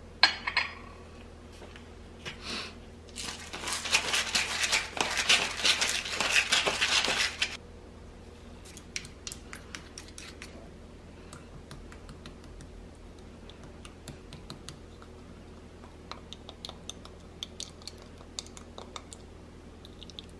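A small glass dish set down on a cutting board with a clink, then spoons stirring a thick red sauce in a glass bowl: brisk scraping and clicking against the glass for about four seconds, then lighter, scattered stirring clicks.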